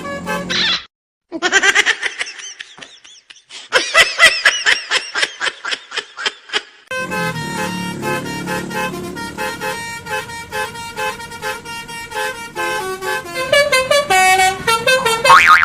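Basuri telolet multi-tone bus horn playing a tune of quick stepped notes. About a second in it breaks off briefly, then gives a rising swoop and a run of rapid pulsing toots, and the stepped tune resumes about seven seconds in.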